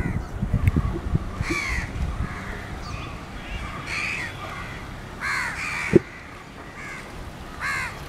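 Crows cawing repeatedly, short arching caws every second or so, over the fading low rumble and wheel clatter of a departing passenger train. A single sharp knock about six seconds in.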